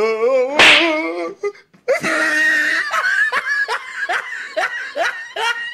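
Laughter: wavering laughs, a sharp smack-like hit about two-thirds of a second in, then a run of rhythmic 'ha-ha' laughs falling in pitch, about two a second.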